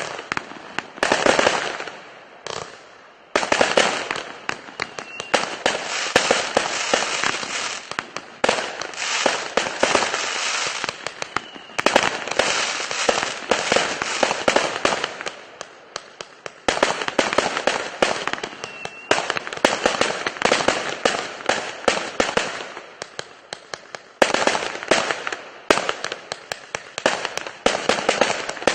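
A 1000-shot firework cake with 0.8-inch tubes firing in dense, rapid volleys of sharp cracks, with brief lulls about 3, 16 and 23 seconds in.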